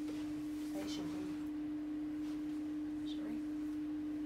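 A steady pure tone held at one mid-low pitch without a break, with faint room sounds beneath it.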